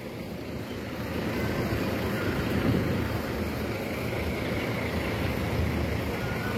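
Steady engine noise of diesel tour buses running, swelling a little over the first second or so and then holding even.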